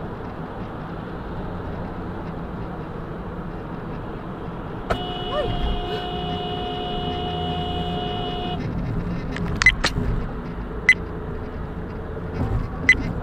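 Steady road and engine rumble inside a car at highway speed. About five seconds in, a car horn sounds one long two-tone blast of nearly four seconds, a warning at a car cutting in close ahead. A few short sharp clicks follow.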